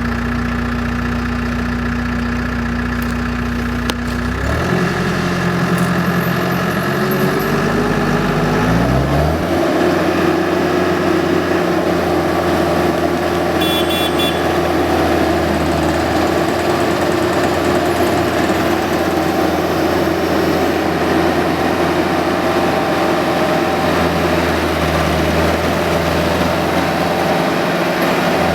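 Caterpillar 268B skid steer's diesel engine idling just after starting, then throttled up in two steps, about four seconds in and again about nine seconds in, and held steady at the higher engine speed.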